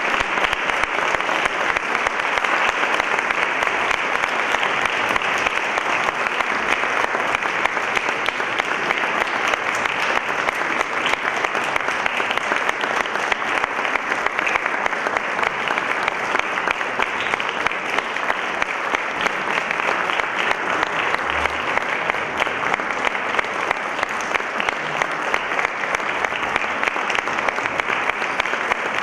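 Concert audience applauding steadily: dense, even clapping from many hands.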